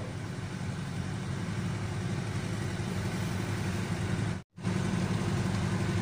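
Small refrigerator's hermetic compressor running with a steady, even hum, just charged with R134a refrigerant to cure a no-cooling fault caused by low gas. The hum cuts out for an instant about four and a half seconds in.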